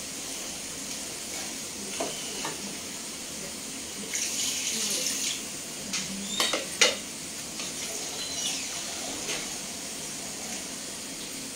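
Chicken curry being stirred in a pot with a wooden spatula, which knocks sharply against the pot several times, loudest about seven seconds in. A watery hiss lasts for about a second from four seconds in as water goes into the hot pot.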